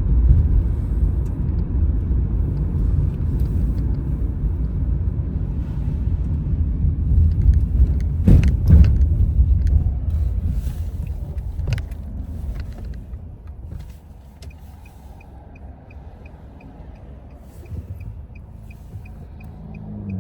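A low, steady vehicle-like rumble that fades down about two-thirds of the way through. A few sharp clicks come in the middle, and a light regular ticking, a little over two ticks a second, runs near the end.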